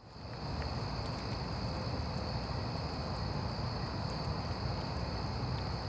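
Outdoor ambience fading in: a steady low rumble with a thin, steady high-pitched tone above it and a few faint ticks.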